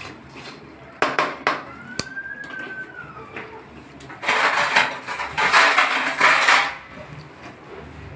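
Metal pot-and-utensil clatter from an aluminium kadhai on a gas stove: two sharp knocks about a second in, a brief squeal that rises and falls, then a few seconds of loud metal scraping and rattling.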